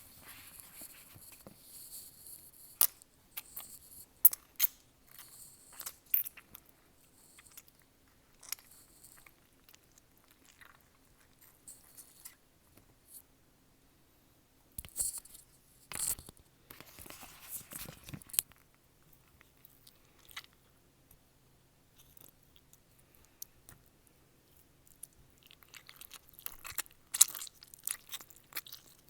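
Foley chewing for a zombie eating brains: wet, squishy chewing and crunching in irregular clusters, with sharp crackly bites and quieter pauses between.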